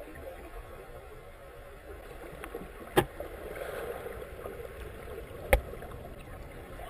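Muffled underwater water noise heard through a GoPro's waterproof housing held just below the surface, a steady low wash. Two sharp knocks cut through it, about three seconds in and again about two and a half seconds later.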